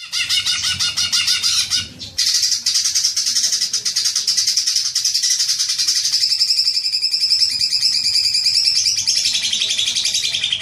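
Cucak ijo (green leafbird) singing a long, fast chattering 'ngekek' run of rapid high repeated notes, with a brief break about two seconds in. This is a lure call, played to set other cucak ijo singing.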